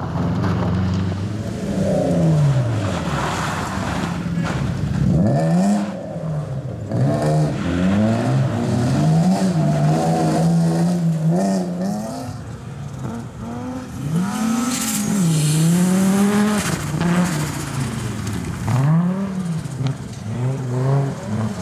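Rally car engines revving hard on a loose winter course, the pitch swinging up and down every second or two as the drivers blip and lift the throttle and change gear, one car after another.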